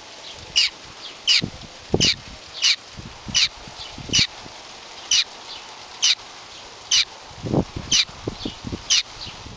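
Baby bird's begging calls: short, loud chirps that drop in pitch, repeated about every three-quarters of a second, the hungry nestling calling for food. A few low thuds come between the calls.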